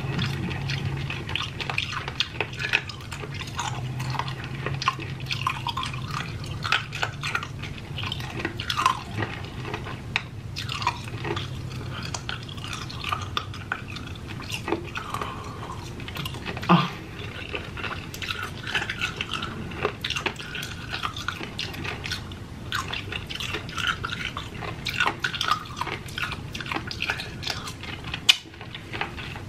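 Close-miked wet mouth sounds of a flavored mini candy cane being sucked and eaten: many small lip smacks, tongue clicks and slurps, with a sharper click about 17 seconds in and another near the end.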